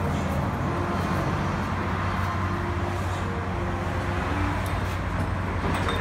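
Steady background noise in an auto repair shop: a constant low hum under an even rushing sound, with no distinct knocks or tool strokes.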